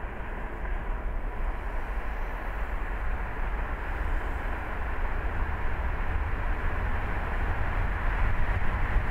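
A car being driven at road speed: steady tyre and road noise over a low rumble, growing a little louder near the end.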